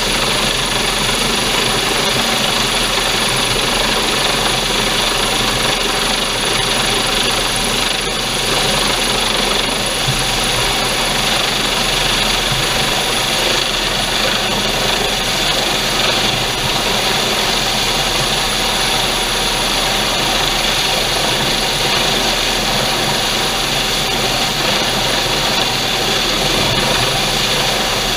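Coast Guard MH-65 Dolphin helicopter hovering low overhead during a basket hoist: a steady turbine whine over rotor noise, with the rotor downwash buffeting the microphone.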